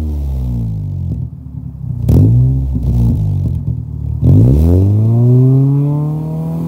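A 2006 Nissan Sentra SE-R Spec V's 2.5-litre four-cylinder is being free-revved through its exhaust while parked. The revs fall back toward idle, then a quick throttle blip comes about two seconds in. A bigger rev follows just after four seconds, holding and slowly dropping.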